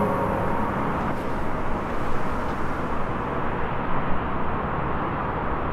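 Steady outdoor background noise, an even rumble and hiss with no distinct events. The last held notes of music fade out just after the start.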